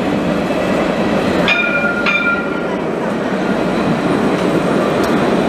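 Jerusalem Light Rail Alstom Citadis tram rolling past on its street track, a steady rumble and rushing of wheels on rail. A ringing warning bell sounds twice about a second and a half in.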